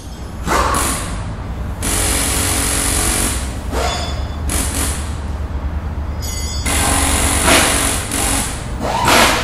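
Loud sound effects for an animated logo intro: whooshing sweeps about half a second in and again near the end, over a dense, gritty noise with a low rumble.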